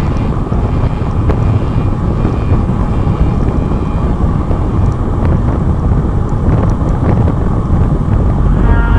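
Wind buffeting the microphone of a rider on the move: a loud, steady low rumble with no clear engine note.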